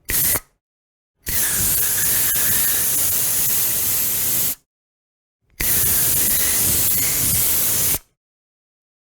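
Aerosol spray can hissing in three bursts: a short puff, then a long spray of about three and a half seconds, then another of about two and a half seconds, with silence between.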